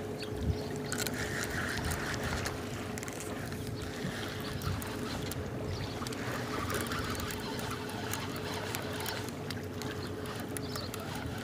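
A motor running steadily, a constant low hum with a thin unchanging tone, over a bed of wind and water noise with a few small clicks.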